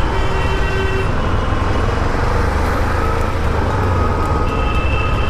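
Dense road traffic heard from a moving scooter: a steady rumble of engines and road noise, with vehicle horns sounding about the first second and again near the end.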